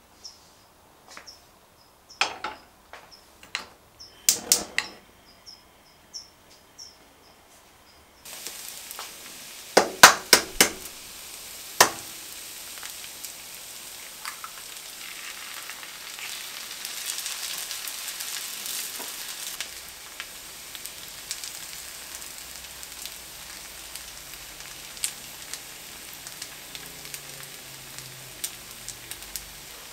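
A few light knocks and clicks of kitchen handling, then about eight seconds in a pan starts sizzling steadily as shredded potato fries for a potato pancake. A few sharp knocks on the pan come soon after the sizzling begins.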